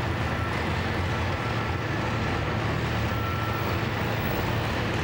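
Engines idling steadily at a truck-pulling track: a low, even rumble with no revving.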